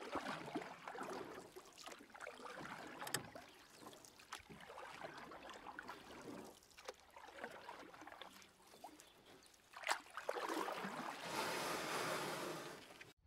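Shallow lake water splashing and lapping as a small dachshund wades in and swims, with scattered small splashes and a louder stretch of splashing near the end.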